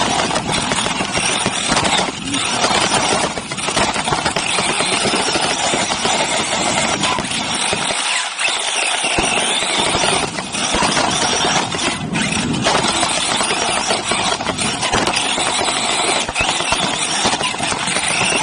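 Team Associated RC8B3.1 1/8-scale electric off-road buggy racing on a dirt track, heard from a camera on its body: a dense, loud rush of wind, drivetrain and tyres on dirt. It drops away briefly a few times, most clearly about eight seconds in.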